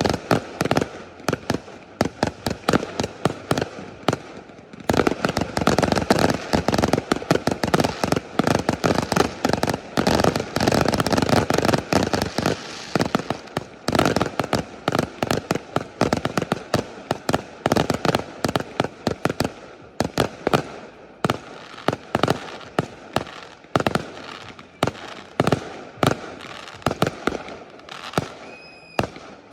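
Aerial fireworks going off in a rapid, near-continuous barrage of sharp bangs and crackles. The barrage is densest in the middle and thins to more spaced-out bangs near the end.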